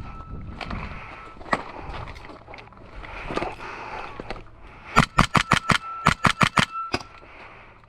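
A few scattered single shots, then a rapid string of about ten shots from an airsoft or paintball gun, about five a second, lasting some two seconds, with a faint steady whine under them.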